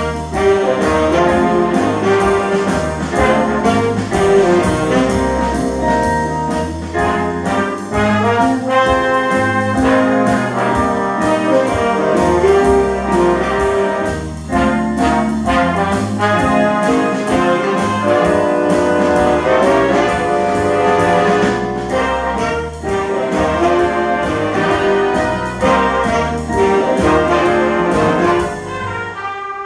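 Big band playing a swing jazz number live: saxophone and brass sections with piano over a steady beat.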